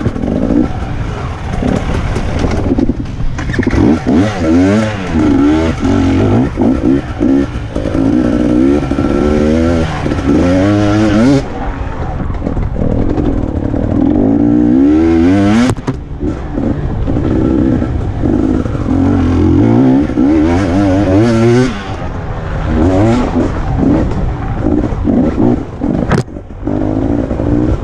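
Enduro motorcycle engine heard from on board, revving hard and easing off again and again, its pitch climbing in quick rises as the rider accelerates along the trail. There is one sharp knock a little past halfway.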